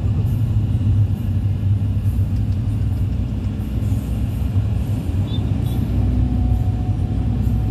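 Steady low rumble of road traffic and vehicle engines, picked up from a moving vehicle, with a bus passing close alongside in the second half.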